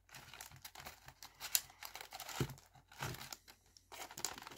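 Crinkling of a cookie pack's foil wrapper and plastic tray as fingers dig through the rows of sandwich cookies, in irregular rustles with a soft knock about halfway.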